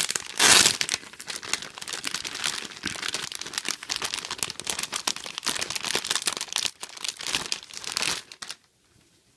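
Clear plastic packaging bags crinkling as doll clothes on plastic hangers are handled. The crinkling is loudest about half a second in and stops suddenly near the end.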